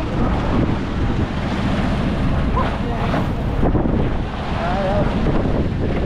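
Strong wind buffeting the microphone over sea waves, a steady rumbling rush.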